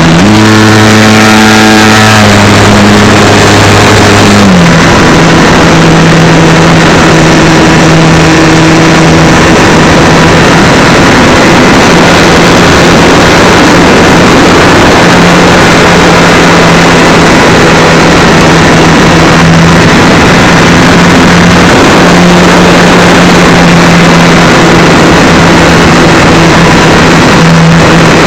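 Super Cub LP RC plane's electric motor and propeller, heard up close from a camera on the plane: a steady motor whine over loud wind and propeller rush. The pitch drops a little about four seconds in, then holds steady.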